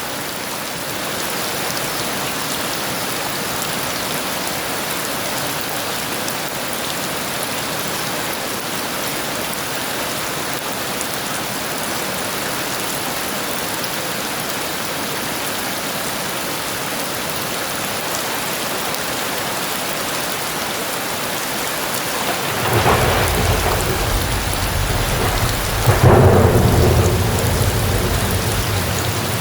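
Heavy rain pouring steadily. Near the end, thunder rumbles in, breaks into a loud clap a few seconds later and keeps rolling.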